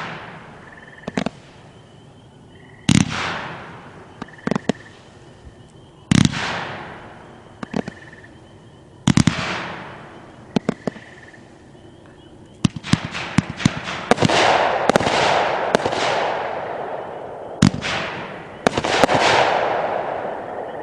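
Legend Fireworks Gold Rush 500-gram cake firing: loud shots about every three seconds, each followed by a fading crackle, with softer pops between. From about two-thirds of the way in, the shots come quickly one after another in a dense crackling volley, the cake's fan-effect finale.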